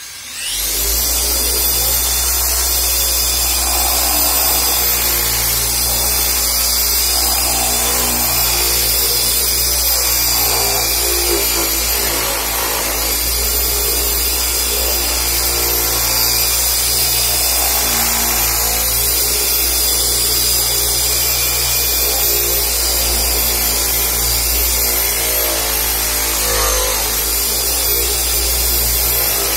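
Handheld electric car polisher with a white buffing pad, starting up about half a second in and then running steadily against a car's painted bumper, with a thin high motor whine over its hum.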